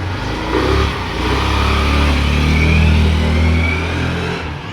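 Honda Activa 125 scooter's single-cylinder engine accelerating on a test ride, climbing in pitch through the middle and getting quieter near the end, with a faint rising whine. It is the ride test after a worn gearbox gear was replaced.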